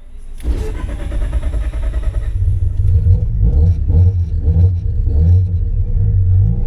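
Mazda RX-7's big-single-turbo 13B rotary engine running at low revs with a choppy, uneven low rumble, growing louder over the first few seconds.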